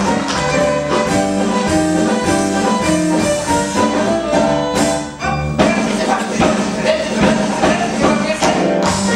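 Theatre band playing a brisk, jazzy show tune, with tap-shoe steps from the dancers clicking along to the beat. The music drops briefly about halfway through, then comes back in on a sharp accent.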